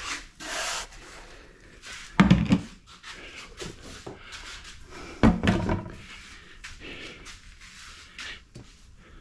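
A hand scoop scraping into a bucket of molding sand and sand being dumped onto a wooden flask, with two heavy thumps about two and five seconds in. Between and after them, hands rub and spread the loose sand.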